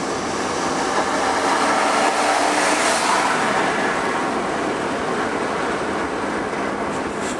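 Steady rushing wind and road noise inside a moving car, swelling briefly about two to three seconds in.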